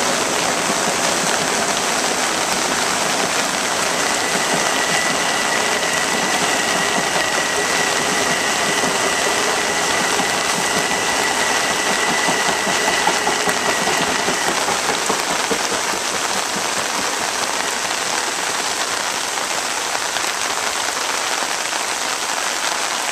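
Heavy rain pouring down on a flooded street and lawns, a steady hiss. A faint steady high tone sounds in the background from about four seconds in until about fourteen seconds.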